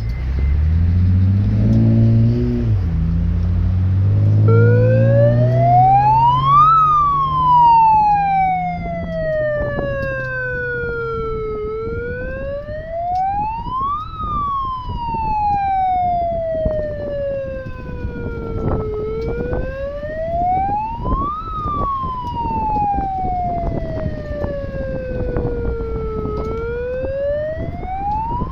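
A siren wailing in slow cycles, rising quickly in pitch and falling away more slowly, about seven seconds per cycle. It starts a few seconds in, after a low droning sound.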